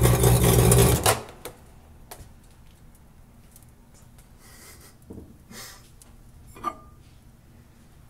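Emerson microwave oven running with a loud hum and dense crackling from arcing inside, the sparking that a stick of butter set off; it cuts off suddenly about a second in. Then light clicks and handling knocks.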